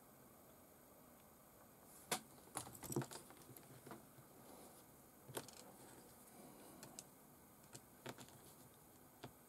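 Faint, scattered clicks and taps of a plastic RC servo and its small mounts and screw being handled and turned over in the fingers, a handful of them, loudest about two and three seconds in.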